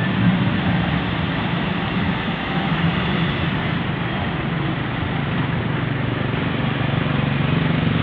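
Vehicle engines running at close range as a small SUV and pickup creep slowly past, with a steady low engine hum.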